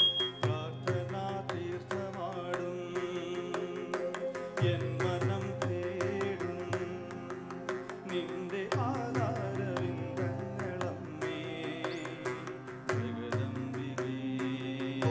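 Live Indian band music: keyboard and a plucked electric string instrument carry the melody over quick, steady hand-drum strokes, in the instrumental interlude of a Malayalam devotional song.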